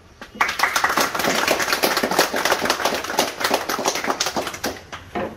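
A small group of about a dozen people clapping their hands together. The applause starts about half a second in and dies away near the end.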